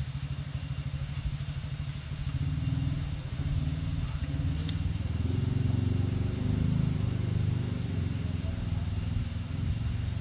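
Vehicle engine starting up suddenly and running with a low, steady note that grows stronger a couple of times as it is driven off.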